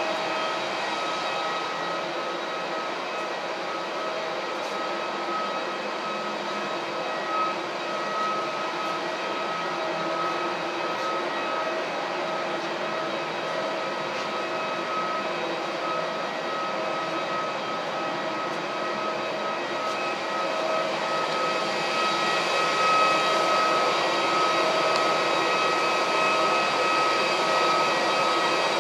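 Jet aircraft engines running with a steady whine over a broad rush, growing louder about twenty seconds in.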